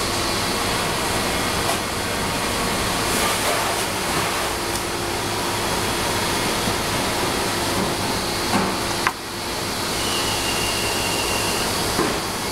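Steady loud rush of a commercial kitchen's ventilation, with a couple of short knocks about eight and a half and nine seconds in.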